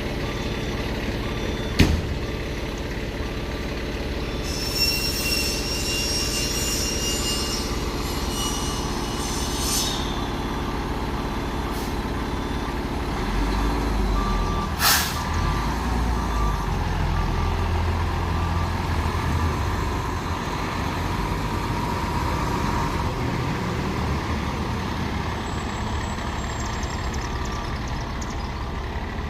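Heavy fire truck's diesel engine idling, with a hiss of air a few seconds in and a sharp air-brake release burst about 15 seconds in. The engine then grows deeper and louder as the truck moves off, with a faint repeating beep.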